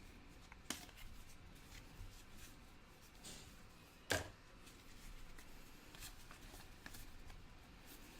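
Faint rustling and soft clicks of trading cards being handled and flipped through one by one, with two sharper snaps, one just under a second in and one about halfway.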